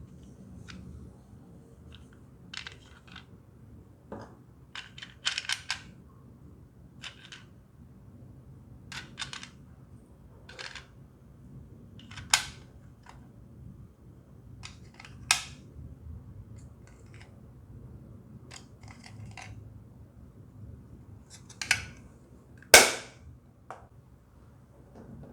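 Slime being poked and pressed by hand, making scattered sharp pops and clicks at an irregular pace. A few louder pops come about halfway through and near the end.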